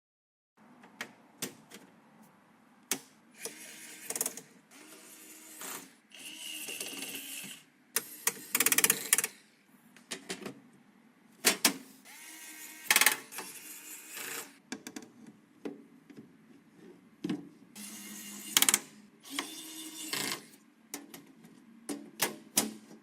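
Computer parts being handled and fitted by hand: an irregular run of sharp clicks and taps of plastic and metal, with a few short scraping, sliding sounds about a second long.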